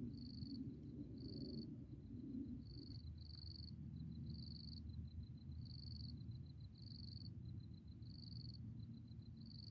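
Crickets chirping: short high trills about once a second over a second, fast even pulsing, with a low rumble underneath.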